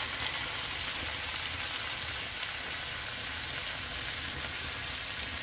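Gurame fish brushed with margarine sizzling steadily on a hot grill tray as they grill: an even, unbroken hiss.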